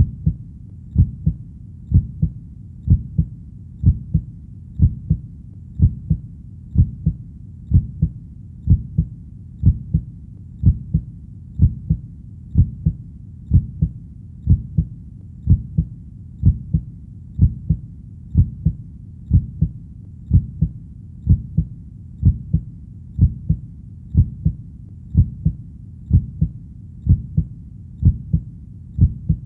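A heartbeat, slow and steady: low double thumps (lub-dub) about once a second, near sixty beats a minute, over a faint low hum.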